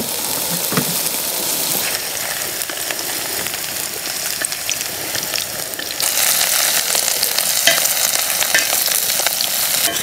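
Chanterelle mushrooms and potatoes sizzling in oil in a thick cast-iron pan, with a metal spatula scraping and stirring them. The sizzle gets louder about six seconds in.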